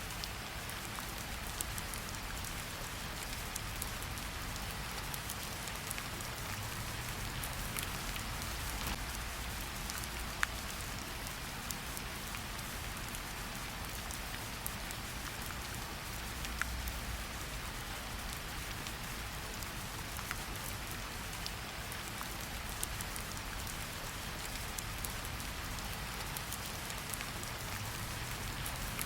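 Steady rain falling in a forest, a continuous patter with scattered individual drops ticking, one a little sharper about ten seconds in.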